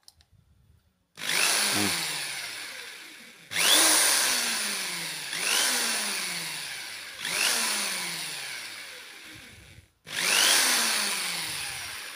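Electric hand drill's motor cutting in and out five times as its power cord is bent. Each time it starts suddenly with a short rising whine, then loses power and winds down with falling pitch. The intermittent running comes from a broken wire inside the power cord near the handle, which makes contact only when the cord is flexed.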